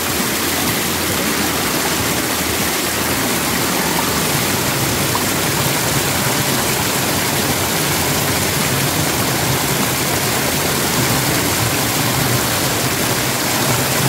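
Mountain stream rushing down a smooth rock chute, a steady, unbroken rush of water.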